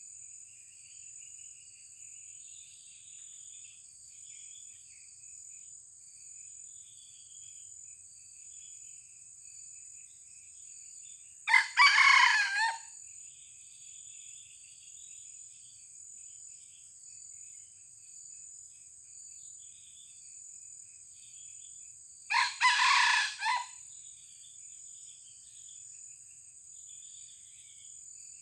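A red junglefowl rooster crows twice, each crow a little over a second long and about eleven seconds apart. A steady high-pitched insect drone and faint scattered bird chirps run underneath.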